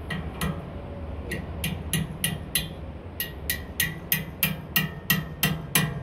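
Small hammer tapping on the metal hub of an air-conditioner condenser fan blade: a steady run of sharp metallic taps, about three a second, each with a brief ring.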